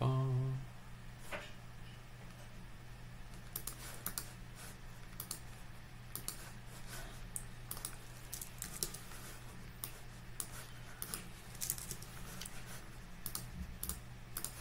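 Computer keyboard typing and mouse clicks: scattered light clicks, thickest in the second half, over a faint steady low hum. A brief low hum sounds at the very start.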